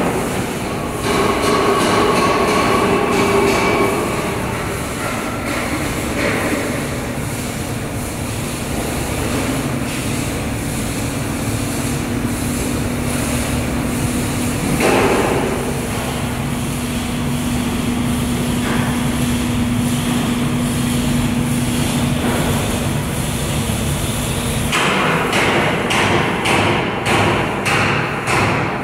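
Steady machinery rumble of a boat-building workshop, with a steady hum through the middle. Near the end comes a quick run of sharp knocks, like hammering.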